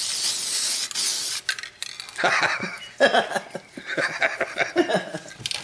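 Aerosol cleaner can spraying in one long hiss for the first second and a half or so, washing residue off a bare metal gun receiver, then cutting off.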